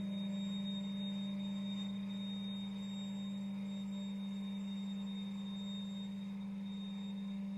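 A single pure, steady low tone held without a break or change in level, with a faint thin high tone above it: a long sustained note in contemporary chamber music.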